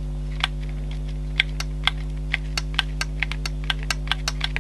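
Light irregular clicks and taps, several a second, from fingertips and nails pressing glued threads down onto a paper page on a cutting mat. A steady low electrical hum runs underneath.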